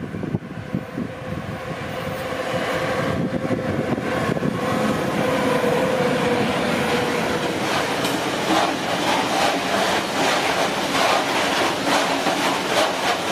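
Electric freight locomotive approaching and passing close by with a steady hum, growing louder over the first few seconds. A long string of loaded bogie hopper wagons then rumbles past, their wheels clicking repeatedly over the rails.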